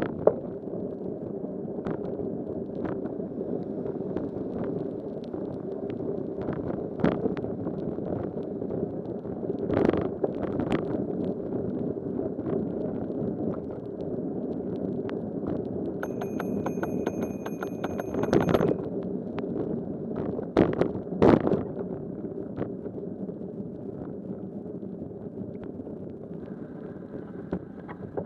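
Steady road and wind noise of a bicycle riding through city traffic on wet pavement in the rain, broken by sharp knocks and rattles as the bike goes over bumps. About two-thirds of the way through, a bell-like ringing tone lasts about two seconds.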